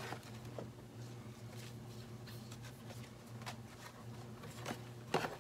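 Faint handling noises: scattered light clicks and rustles of small items and packaging being handled on a table, with a brief louder pair of clicks near the end, over a low steady hum.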